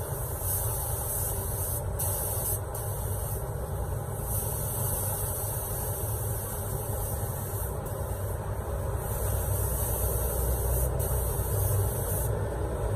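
Iwata gravity-feed spray gun with a 1.3 mm nozzle spraying a mist of compressed air, a steady high hiss that breaks off briefly a few times as the trigger is eased, over a low steady rumble.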